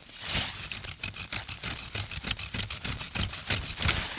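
Small tree branches being cut and broken off: a fast, uneven run of sharp snaps and crackles of twigs.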